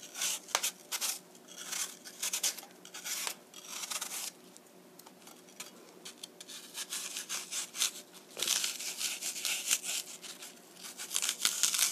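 Paring knife peeling an apple in a spiral: an irregular run of short, crisp scraping strokes as the blade shaves through the skin, thicker and faster in the last few seconds.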